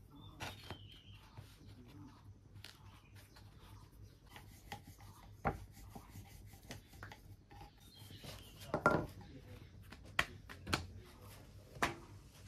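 Roti dough being patted and rolled on a wooden board with a wooden rolling pin: soft rubbing and patting with scattered wooden knocks and clicks. The sharpest knock is about five and a half seconds in, and there is a louder cluster around nine seconds.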